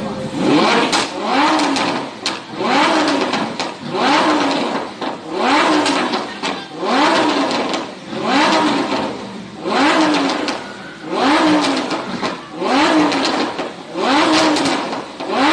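High-performance car engine revved again and again in quick throttle blips, about eleven times roughly a second and a half apart, each rev rising and falling in pitch.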